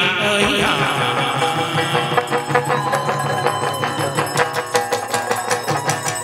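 Chầu văn (hát văn) ritual music played without singing: a plucked lute carrying the melody over fast, steady clicking percussion.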